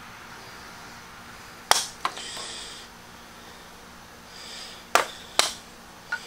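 Sharp wooden snaps as a knife blade levers and cuts CNC-cut pendant discs free of a thin board: five cracks, two close together about two seconds in and three more near the end, with brief scraping of the blade in the cut between them.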